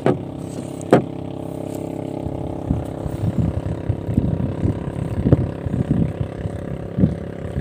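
Steady droning hum of a boat engine running. There are two sharp clicks in the first second, then irregular soft knocks over the hum.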